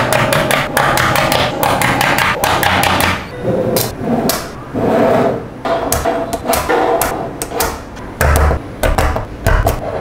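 Small magnetic balls clicking and clacking together in quick, irregular succession as they are snapped into place.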